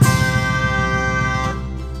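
Folk band playing an instrumental passage with no singing: a full chord struck at the start, held steady, then fading after about a second and a half.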